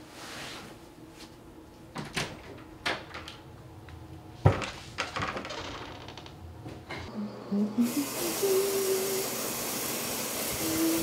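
Footsteps and door handling: a few knocks and clicks, the loudest a sharp door clunk about halfway through. Then water starts running with a loud steady hiss, and a pipe whine rises in pitch as it comes on and then holds.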